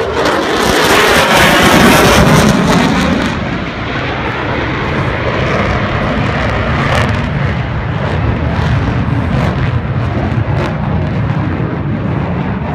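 F-22 Raptor's twin turbofan jet engines passing overhead. The jet noise is loudest in the first three seconds or so, with a swirling sweep in pitch, then settles into a steady, quieter rush as the jet draws away.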